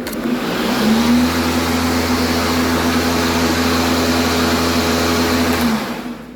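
DeWalt 20V battery-powered lawn mower's electric motor and blade spinning up about a second in and running with a steady, loud hum. It winds down near the end when released.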